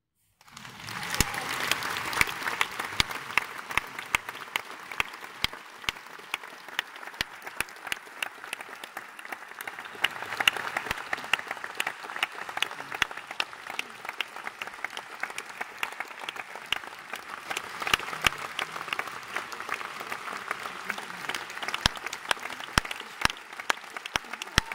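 Theatre audience applauding, starting suddenly out of silence about half a second in, with single claps close to the microphone standing out above the steady clapping of the crowd.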